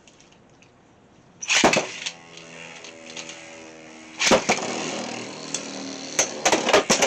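Beyblade spinning tops whirring in a plastic stadium with a steady hum, after a sudden scrape about a second and a half in. From about four seconds in they clash with loud, sharp hits and clicks.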